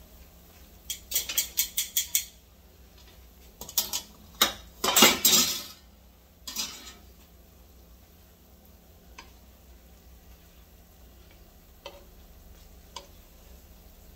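Metal tongs and cookware clicking and clattering: a quick run of clicks about a second in, then a louder clatter of metal between about four and six seconds in. After that there are only a few faint single clicks.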